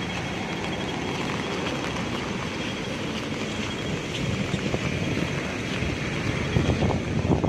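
Steady street noise of traffic and falling rain, with wind buffeting the microphone in stronger gusts near the end.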